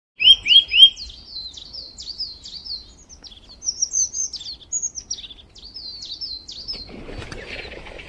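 Small birds chirping, opening with three loud sweeping calls followed by a long run of quicker, higher notes. About seven seconds in the calls stop and give way to a rustling hiss.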